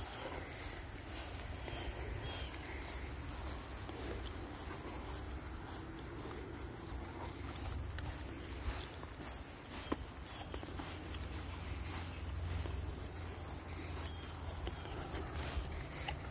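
Steady high-pitched chorus of meadow insects, with a low rumble underneath.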